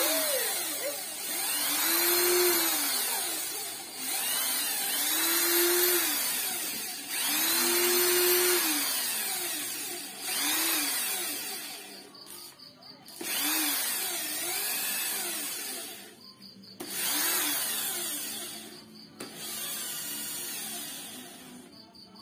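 Small electric power tool run in repeated short spurts, its motor rising in pitch and falling away again each time, about eight or nine runs with short pauses between them.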